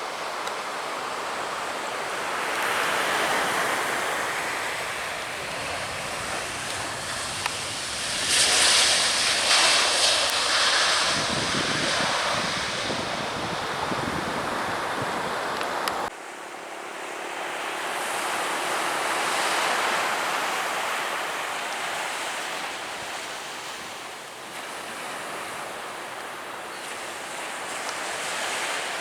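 Surf breaking on a beach in slow swells, with wind buffeting the microphone. The sound drops off abruptly about halfway through, then the swells return.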